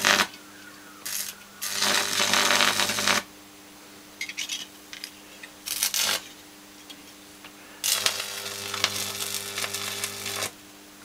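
High-voltage arc from a microwave oven transformer buzzing and crackling across the ends of MIG welding wire, burning the wire, in several bursts: one at the start, a longer one about 1 to 3 seconds in, a short one near 6 seconds and the longest from about 8 to 10 seconds. Under the bursts the transformer hums steadily.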